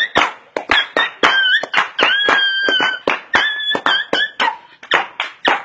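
Music: a high, whistle-like melody of held notes over a quick clicking beat of about four clicks a second.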